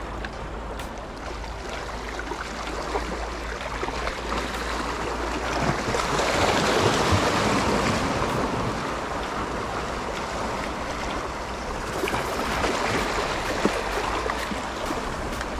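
Sea waves washing against shore rocks, a steady rush of water that swells about six seconds in and then eases off.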